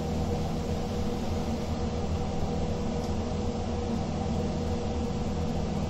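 A steady low machine hum with no clear breaks or knocks.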